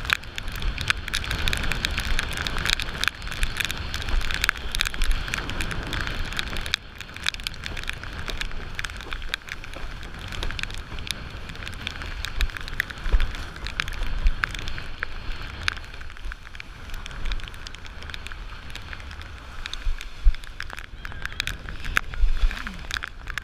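Windsurf board planing over wind-driven chop, heard through an action camera on the rig: a steady rush of wind and water with many sharp crackles and splashes of spray. It eases a little about seven seconds in, with more splashing near the end.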